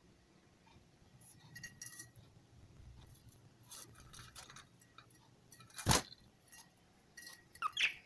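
Pet budgerigars in a wire-mesh cage: scattered light clicks and clinks, with a sharp click about six seconds in and a short chirp near the end.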